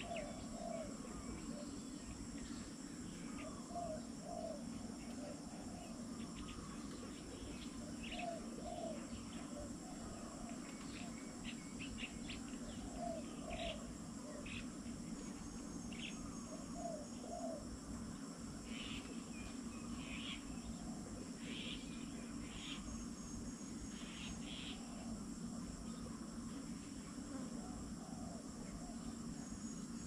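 Steady high-pitched insect trilling with scattered short bird calls throughout, some shrill and some lower, over a low steady hum.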